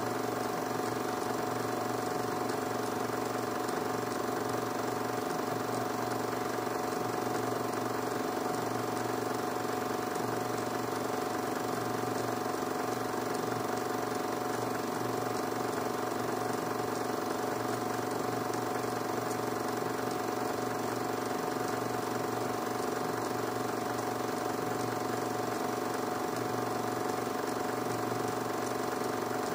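16 mm film projector running steadily: a constant motor and mechanism hum with several steady tones that does not change.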